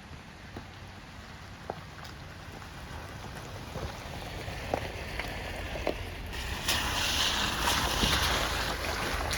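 Outdoor wind rumble with scattered drip-like ticks. About six seconds in, the loud even rush of a fast creek comes in and carries on.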